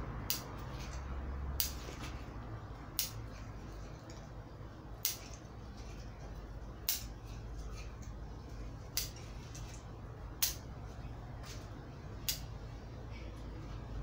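Bonsai pruning scissors snipping shoots on an elm forest planting: about eight sharp snips, spaced a second or two apart.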